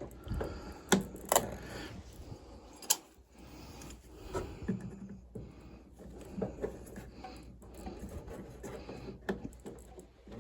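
Scattered clicks, taps and small knocks of hand tools and parts being handled during furnace repair work, with a sharper click about a second in and another near three seconds.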